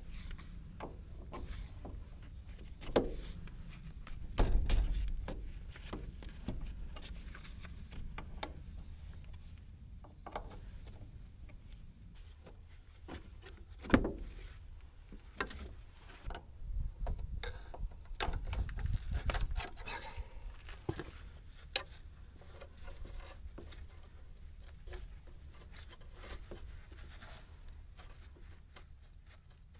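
Hand-tool work on a pickup truck's brake and power-steering line fittings: scattered metal clinks, taps and scrapes, with a sharper knock about halfway through.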